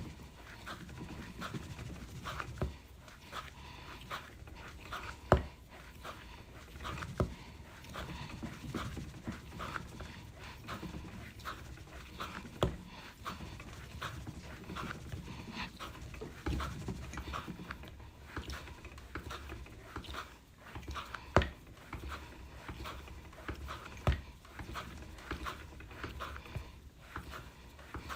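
Clay being wedged by hand on a work surface: a steady run of short pushing and rubbing strokes, with a few louder thumps as the lump is slapped down.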